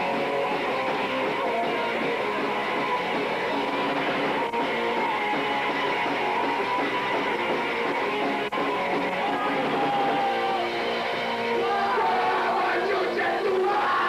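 Punk band playing live: electric guitar and band music going on without a break, taken from inside a crowded small room.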